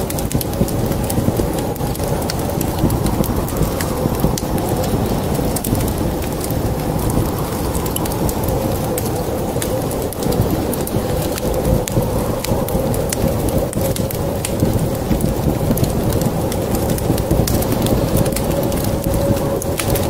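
Layered rain-and-fire ambience: steady heavy rain with a continuous low rumble, scattered with sharp crackles and pops of a wood fire. A steady, slightly wavering tone runs underneath.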